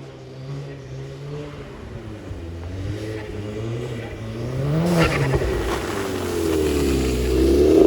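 Straight-piped Audi S3 8P's turbocharged 2.0-litre four-cylinder engine revving up and down, with a short crackle about five seconds in as the revs peak and drop, then building again, louder and raspier, near the end.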